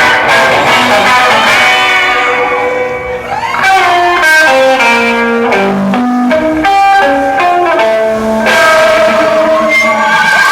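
Electric guitar playing a melody of single notes that step up and down, with crowd cheering and screaming near the start and again at the end.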